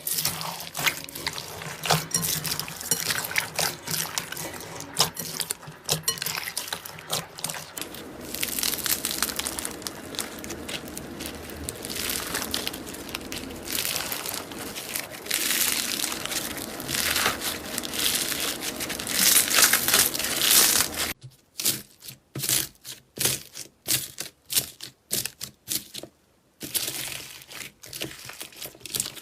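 Slime being squeezed and stretched by hand, a dense run of wet crackling and small popping clicks. About two-thirds of the way through it changes to short separate squishes with brief silent gaps between them.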